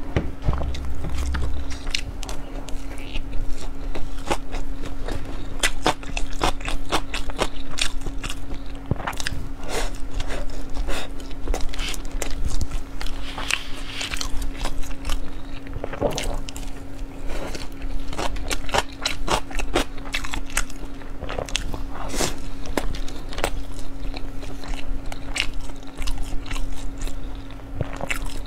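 Close-miked chewing and biting of sushi rolls: many wet mouth clicks and smacks over a steady low hum.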